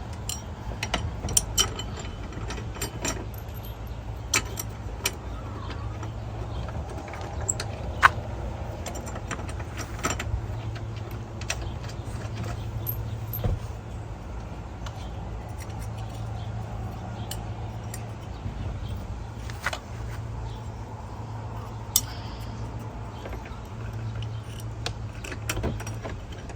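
Scattered metal clinks and taps of small hardware and tools being handled: hinge bolts, shims and washers, with a few sharper knocks. Under it is a steady low hum.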